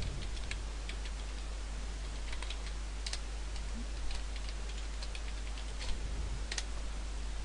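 Computer keyboard typing: scattered light keystrokes as a username and password are entered, over a steady hiss and low hum.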